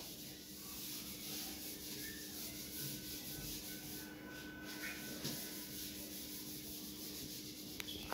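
Whiteboard eraser rubbing across a whiteboard, wiping off marker writing, as a soft, steady scrubbing hiss, with a sharp click near the end.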